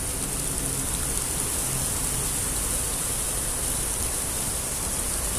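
Steady splashing hiss of a fountain's many small water jets.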